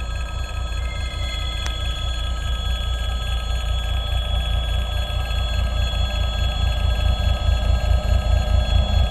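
ChME3 diesel shunting locomotive approaching at the head of a freight train, its engine a low rumble growing steadily louder. A steady high bell-like ringing of several tones runs over it, with one brief click about two seconds in.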